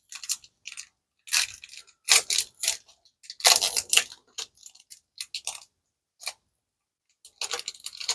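Foil trading-card booster pack wrapper crinkling and tearing open in the hands, in several irregular crackly bursts with short pauses between.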